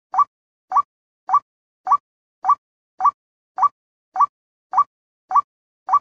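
White-breasted waterhen lure call played back for bird trapping: a short call rising in pitch, repeated evenly about every half second with silence between.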